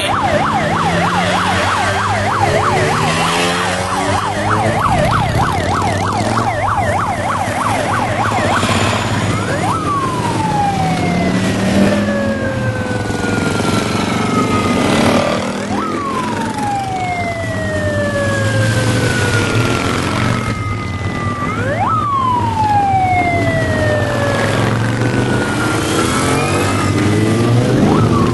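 A siren warbles rapidly for the first few seconds. It then switches to long sweeps that jump up sharply and slide slowly down, repeating about every six seconds. Underneath run the engines of a column of motorcycles and scooters riding past.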